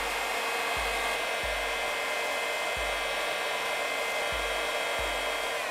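Electric hot air gun running steadily: a constant rush of blown air with a steady high fan whine.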